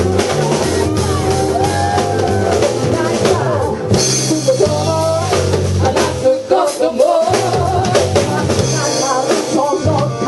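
Live rock band playing: a drum kit keeping a steady beat under bass and guitar, with a wavering lead melody on top.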